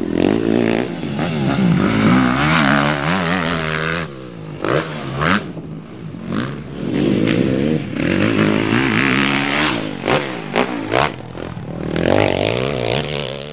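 Motocross dirt bike engine revving hard, its pitch climbing and dropping over and over as the rider works the throttle.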